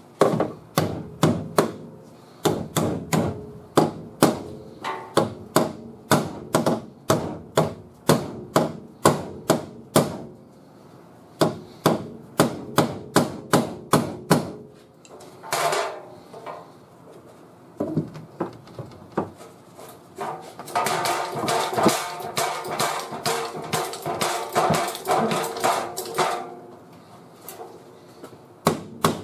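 A hand hammer striking the steel rear body panels of a unibody car while a porta-power hydraulic ram pushes on the structure. The blows come in runs of about two a second with short pauses, and there is a stretch of faster, closer-spaced strikes in the later part.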